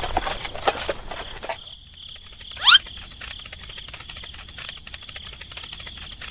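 Crickets chirping: a dense run of fast ticks over a steady high tone. Before them, clicking and rustling cuts off sharply. A single quick rising whistle, the loudest sound, comes about two and a half seconds in.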